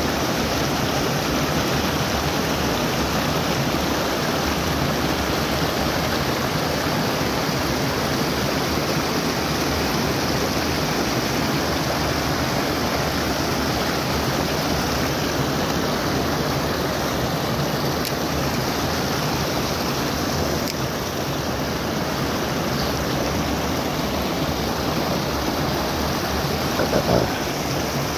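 Creek water rushing steadily over a small rock ledge, a shallow rapid spilling white water.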